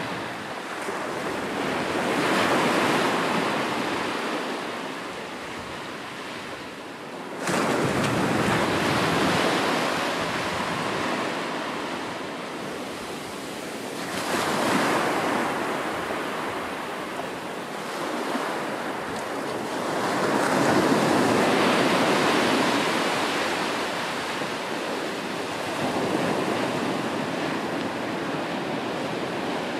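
Sea surf: waves breaking, a rushing noise that swells and eases about every six seconds, one surge coming in sharply about seven seconds in.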